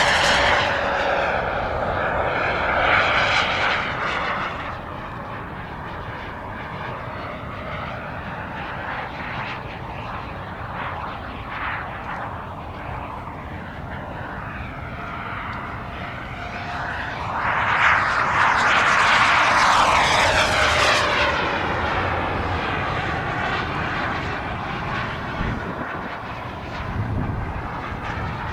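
Small turbine engine of a radio-controlled model jet in flight, a steady whooshing whine that swells as the jet passes close at the start and again about two-thirds of the way through, then fades as it flies off.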